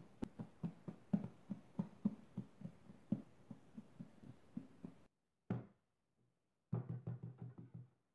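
Bread dough being kneaded by hand on a wooden table: a steady run of soft thumps, about four a second, that stops abruptly about five seconds in. A single thump follows, then a faster run of thumps near the end.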